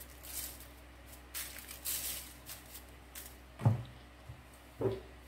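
Several short, soft rustling and shaking noises as salt is shaken out over the turkey leg, then two brief low thuds near the end.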